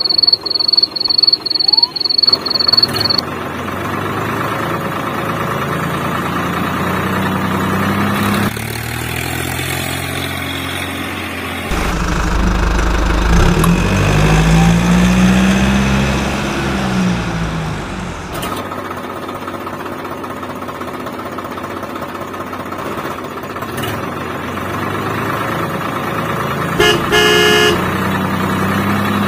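Tractor engine sound running and revving, its pitch rising and falling in the middle. Rapid regular beeps open it, and a short run of horn toots comes near the end.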